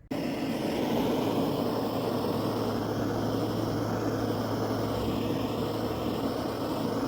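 A heating tool running on a motorcycle cam gear, heating it so the new cam lobe can be pressed in. It is a steady, loud rushing blast with a low hum that starts abruptly.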